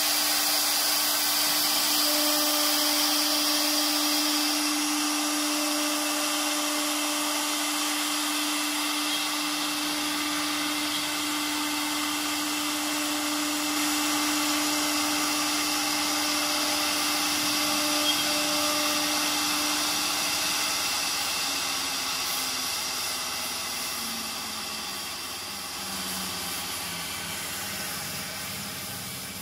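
Spindle of a two-head CNC wood router running with a steady whine over a broad hiss of cutting. About twenty seconds in, the whine slides steadily down in pitch and the sound fades as the spindle slows.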